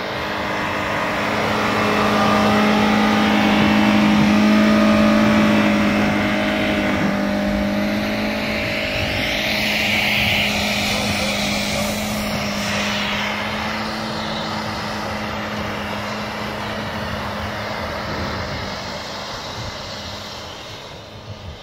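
Suzuki Vitara off-roader driving slowly through deep snow past the listener: a steady engine note that grows as it approaches, with a rush of tyre noise on the snow as it passes close about halfway, then slowly fading as it drives away.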